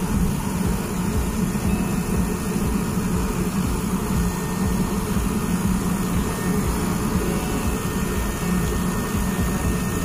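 Split air conditioner's outdoor unit running steadily at close range: condenser fan and compressor giving an even hum. The contactor has pulled in and the unit is cooling again.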